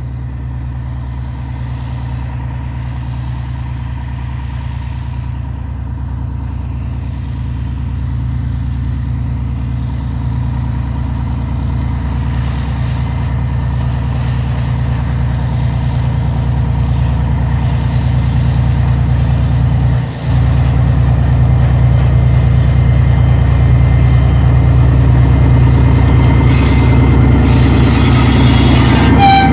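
2TE10L diesel locomotive's 10D100 two-stroke opposed-piston diesel engines working under heavy load as it hauls a freight train up a grade: a steady deep drone that grows steadily louder as the locomotive approaches, with more clatter near the end.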